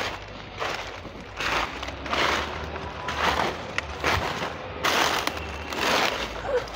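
Footsteps crunching through dry fallen leaf litter, about one step a second.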